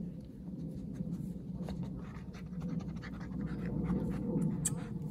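A dog sniffing and panting close by while searching for a scent, with scattered light scratching and rustling clicks.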